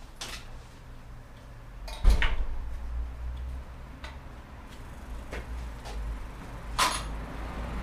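Handling noises from a bicycle in a repair stand: a loud knock about two seconds in with a short low rumble after it, small clicks and rattles, and a sharp click near the end.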